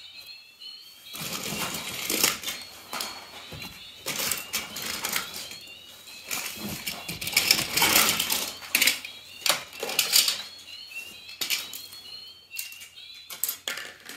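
Toy cars and toy monster trucks clattering as they are handled, knocked together and set down on the floor: a dense, irregular run of small plastic and die-cast clicks and knocks.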